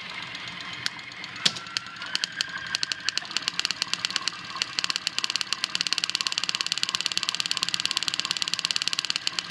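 High-voltage sparks from a Model K Ford Holley magneto and coil snapping across an air gap of about an inch. A few separate cracks come first, then they quicken about three seconds in into a fast, even snapping.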